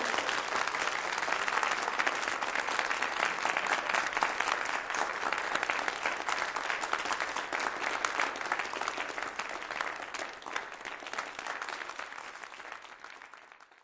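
A large crowd applauding, a dense steady clatter of many hands that thins out and fades away over the last few seconds.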